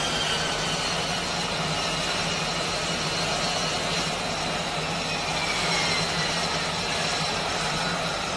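F-35B Lightning II's F135 jet engine running steadily: an even rush with a thin high whine over it that drifts slightly lower in pitch now and then.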